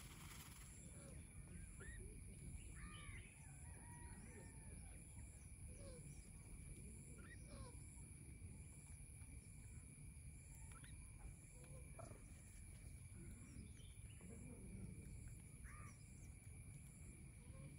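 Faint outdoor bird ambience: scattered short bird calls, rising and falling in pitch, over a low steady rumble and a thin steady high tone.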